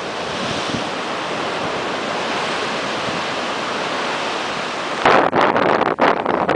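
Storm waves breaking against a seawall, a steady rush of heavy surf. About five seconds in the sound changes abruptly to louder, gusting wind buffeting the microphone.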